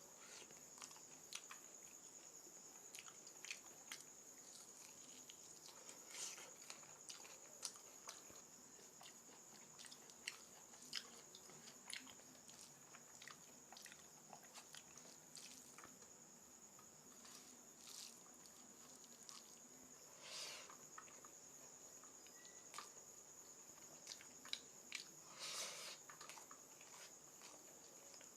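Faint eating sounds: chewing, lip smacks and small mouth clicks of someone eating mutton curry with rice. A steady high-pitched whine runs underneath.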